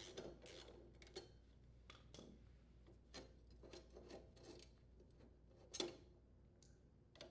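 Faint, irregular metallic clicks and rubs of a socket ratchet, bolts and a lawn mower blade being handled as the blade is worked off the mower's spindle, with one louder clink a little before six seconds in.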